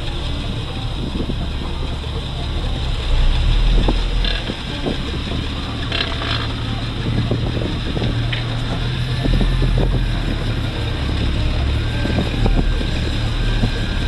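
1983 Jeep CJ7's engine running under load while pushing snow with its plow, swelling louder a few times, with scattered clunks and rattles.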